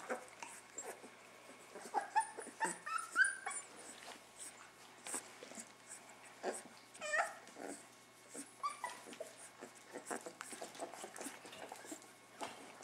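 A young puppy whining in short high squeaks while being stroked, with a longer rising whine about seven seconds in. Soft rustling of fur and bedding under the hand throughout.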